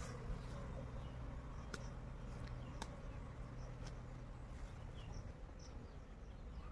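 Honeybees buzzing faintly around an opened hive, with a couple of light clicks and faint bird chirps.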